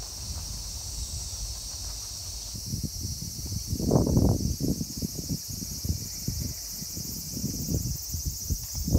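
Insects chirring steadily in a high register over a low wind rumble on the microphone, with louder bursts of rustling about four seconds in and again at the end.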